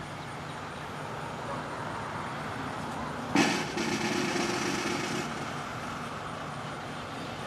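Steady outdoor background noise, with a louder hiss starting about three seconds in and lasting about two seconds.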